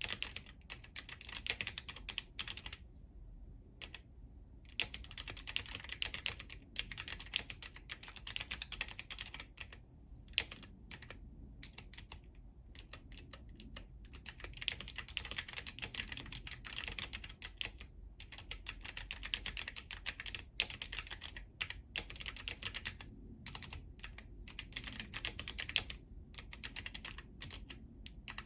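Fast typing on a Womier K68 mechanical keyboard with clicky Kailh Box White switches and clear plastic keycaps, keys struck with long fingernails. Quick runs of sharp clicks broken by short pauses.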